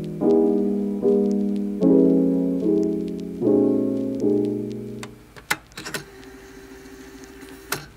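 Background piano music: chords struck about every second, each dying away. About five seconds in, the music drops to a faint held tone with a few scattered clicks.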